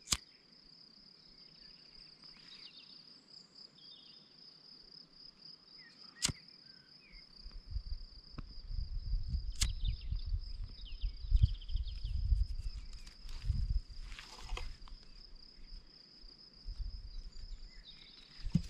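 Lighter sparked and burning to melt the cut end of 550 paracord so it won't fray: sharp clicks about six and nine and a half seconds in, then a low rumble for several seconds. Crickets chirr in a steady high trill behind it.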